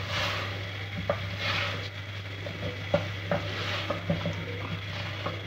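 Wooden spatula stirring potato chunks through spinach in an aluminium pot, scraping the pot in repeated strokes with several sharp knocks against its side. Frying food sizzles underneath.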